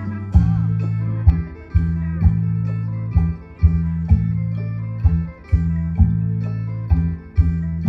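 Music: a plucked string melody over a steady bass line, with a strong beat about once a second.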